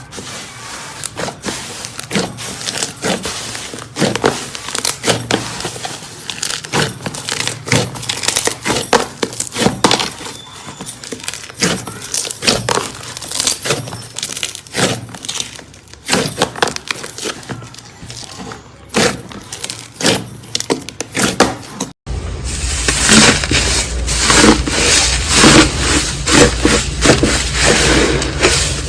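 Slime being squeezed and poked, giving a dense run of irregular sticky crackles and popping clicks. About 22 seconds in, it cuts to a louder, denser crunching.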